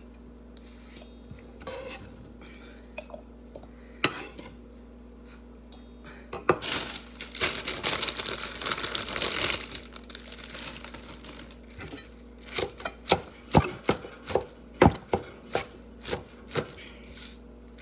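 Kitchen knife chopping vegetables on a cutting board: scattered taps at first, a few seconds of rustling noise in the middle, then a run of sharp knocks at about two a second in the second half.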